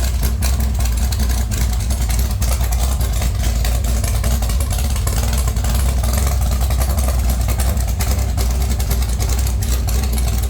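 Mopar small-block 408 stroker V8 running steadily on open headers with no mufflers, on an engine test stand for its break-in run.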